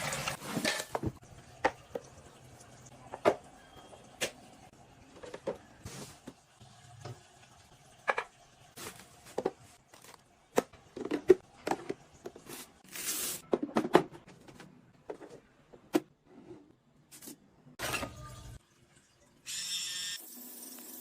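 Irregular sharp clicks, taps and knocks, with a few short hissing bursts and a steadier hiss near the end.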